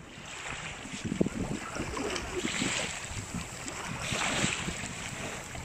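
Small waves lapping over chunks of glacial ice and pebbles at the water's edge. The wash swells and hisses twice.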